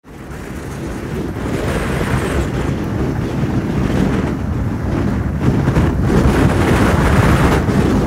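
Wind buffeting the microphone: a loud rushing rumble that starts abruptly, builds over the first two seconds and then holds steady.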